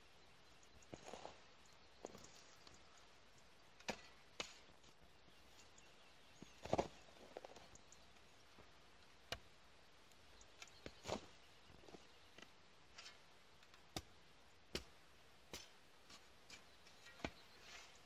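Long-handled hoe chopping into dry grass and soil: irregular sharp strikes, roughly one a second, the loudest about seven seconds in.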